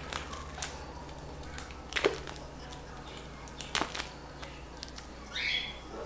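Plastic shrink-wrap being picked open and peeled off a hardcover book: sharp crinkles and crackles about two and four seconds in, with a longer rustle near the end.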